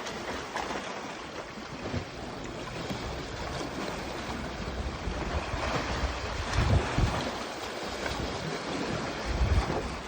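Strong wind buffeting the microphone over a steady rush of sea surf, with heavier gusts rumbling in about six seconds in and again near the end.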